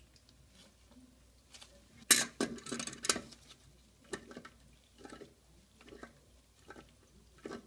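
Tongue-and-groove pliers on the metal nut of a toilet's closet bolt, tightening it down: a loud rattling clatter of metal clicks about two seconds in, then single sharp clicks under a second apart.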